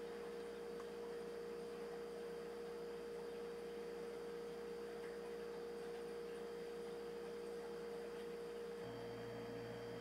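A steady hum with one held tone over faint hiss, no goose calls or splashing; a deeper hum joins near the end.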